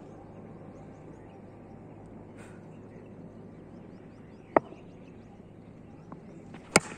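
Two sharp knocks of a cricket ball being struck, about two seconds apart, with a couple of smaller clicks just before the second. Behind them is steady outdoor background noise with faint bird chirps.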